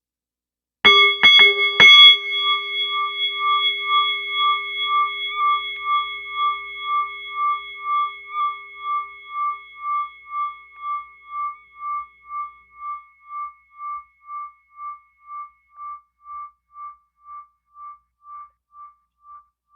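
A bell struck three times in quick succession, then left ringing with a slow pulsing waver, about two pulses a second, that fades away over some eighteen seconds.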